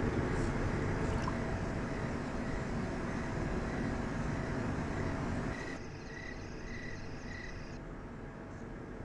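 Cricket-like chirps repeating about twice a second over a steady low rumble. About six seconds in the rumble drops away, leaving the chirps clearer for a couple of seconds.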